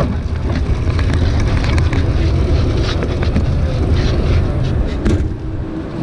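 Go-kart rolling slowly over pavement as it is pushed by hand, a continuous uneven low rumble from the tyres and chassis.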